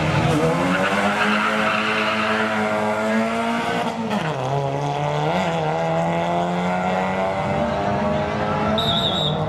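Drag-racing car engine running hard at high revs. The pitch drops sharply about four seconds in, then holds lower and creeps back up. A hiss of tyre noise sits over it in the first couple of seconds.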